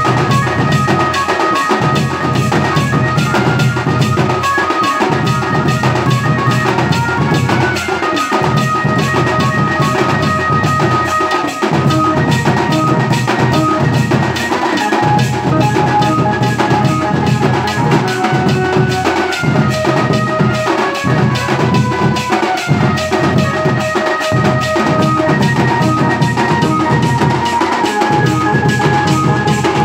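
Village band music: a set of drums on stands, a snare drum and tom-toms, beaten in a fast, steady rhythm, with a melody in held notes carried over them.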